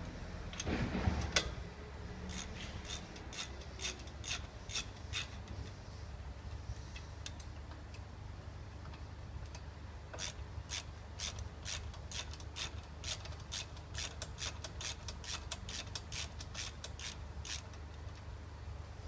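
Ratchet wrench clicking in quick, even strokes, about three clicks a second, as the brake caliper's guide bolts are wound in. The clicks come in two runs, a short one from about two seconds in and a longer one from about ten seconds in, after a scrape and knock about a second in.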